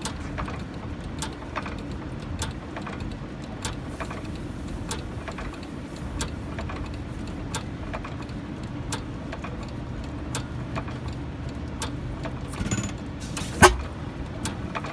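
Old hit-and-miss stationary gas engine running slowly on its governor, a steady low rumble with a sharp click about every second and a quarter. Near the end there is one much louder bang.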